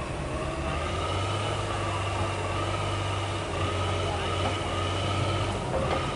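Heavy diesel engine running steadily with a high, even whine over its low hum, from the truck or the excavator working the recovery.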